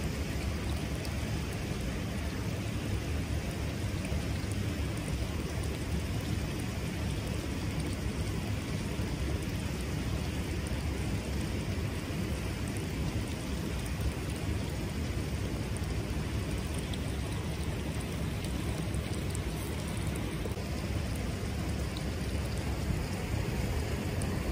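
Steady rush of flowing water, an even wash of noise with a deep low rumble.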